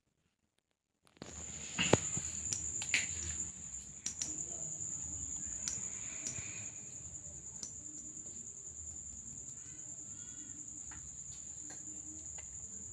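A steady high-pitched trill, like an insect's, runs under a quiet room background with a few light clicks and knocks; it starts about a second in, after a moment of silence.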